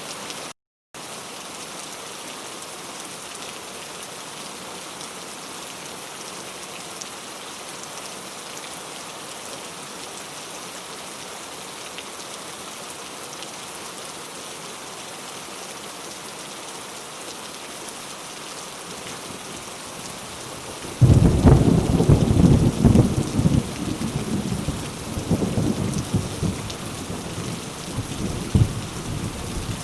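Steady rain falling, briefly cut out to silence just after the start. About two-thirds of the way in, a sudden loud clap of thunder breaks and rumbles on for several seconds.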